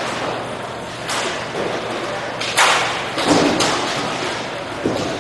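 Roller hockey play echoing in a large rink hall: sharp clacks and knocks of sticks, puck and boards. The loudest comes about two and a half seconds in, with several smaller ones around it.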